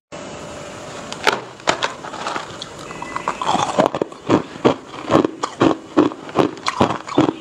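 Hard ice crunching between a person's teeth, close to a clip-on microphone: a few scattered crunches at first, then a steady run of about three crunches a second from about halfway through.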